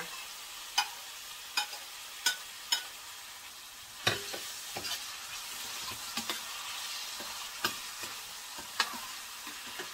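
Chopped tomatoes and onion sizzling as they fry in hot olive oil in a metal frying pan. They are being stirred, with about eight sharp, irregular knocks against the pan.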